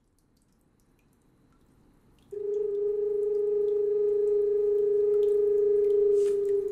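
A single long held musical note, steady in pitch, coming in suddenly about two seconds in over a faint background and dipping slightly in pitch as it fades at the end.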